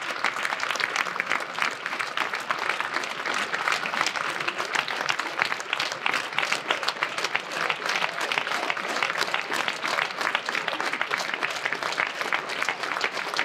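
Large hall audience applauding steadily: a dense, even clatter of many hands clapping at once.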